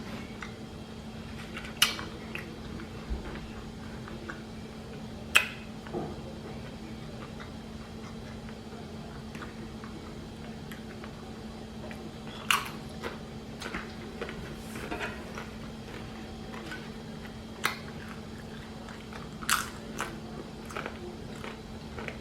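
A person eating chicken salad close to the microphone: steady chewing with a few sharp, crunchy bites scattered through.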